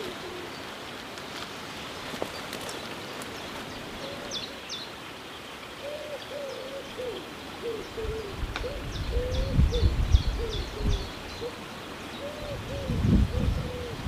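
Woodpigeon cooing in repeated low, soft phrases from about four seconds in, with a small bird chirping high and faint above it.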